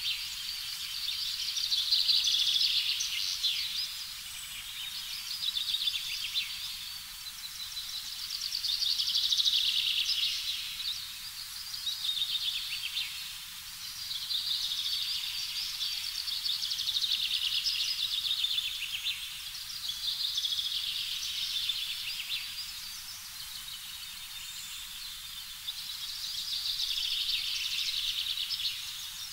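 High-pitched chirping made of rapid tiny pulses, swelling up and fading away about every three to four seconds, over a faint low hiss.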